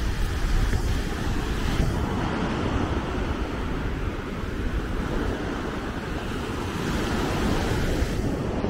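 Small surf breaking close by and washing up the sand, a steady hiss of foam with a swell of wash near the end. Wind buffets the microphone with a low rumble underneath.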